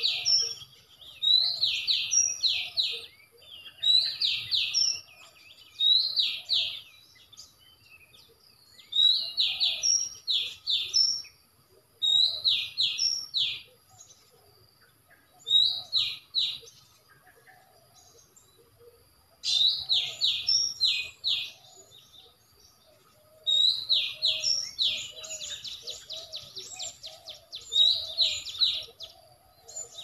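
Oriental magpie-robin song played as a trapping lure from an MP3 player, a short phrase of quick, high, falling whistles repeated over and over with short gaps.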